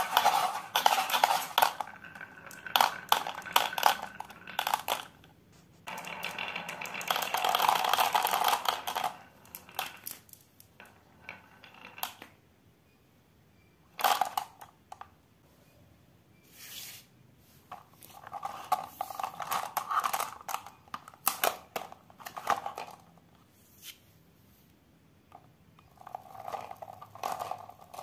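Glass marbles rolling down a wooden zigzag marble slope, clicking against each other and the wood, in several runs of clatter with quiet gaps between. A single sharp knock comes about halfway through.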